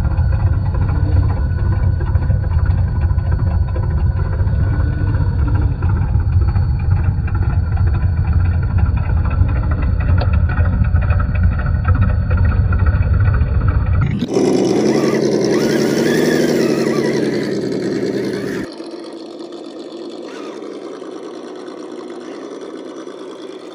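RC scale crawler truck running through shallow water over rocks: a deep, muffled rumble for most of the first half, then its sound-kit engine revving up and down for a few seconds, then quieter, steady running.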